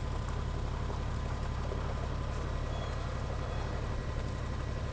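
Engine of a lifted Japanese mini 4x4 truck running steadily at low revs as the truck crawls slowly forward.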